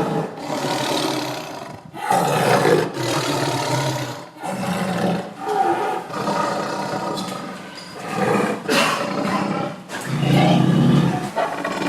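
A tiger roaring over and over: about six loud calls, each a second or two long, with brief pauses between them.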